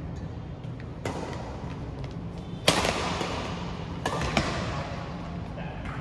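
Badminton rackets striking a shuttlecock in a rally: four sharp cracks, the loudest a little before the middle and two close together near the end, each with a short echo.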